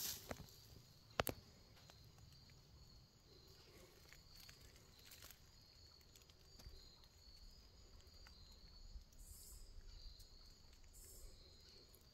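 Faint rustling of footsteps through dry fallen leaves, with one sharp click about a second in, over a faint steady high trill of insects.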